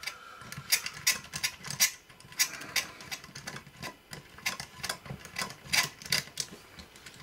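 Precision screwdriver turning out a small screw, with irregular sharp clicks about two a second as the tip and screw turn.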